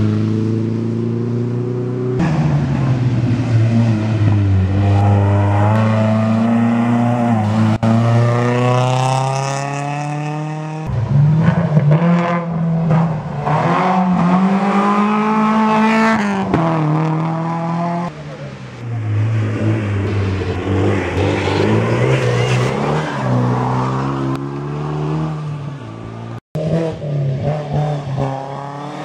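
Rally cars taking a hairpin one after another: each engine's pitch drops as the car slows into the bend, then climbs steeply as it revs hard out of it. This happens several times, with the sound changing abruptly between passes; a red Toyota RAV4 is on the bend near the end.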